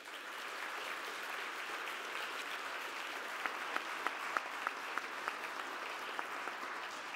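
Audience applauding steadily, with a run of louder, sharper single claps, about three a second, from one nearby pair of hands about halfway through.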